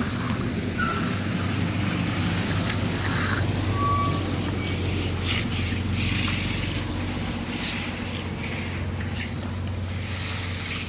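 An engine running steadily at a constant speed, with irregular bursts of scraping or hissing noise over it.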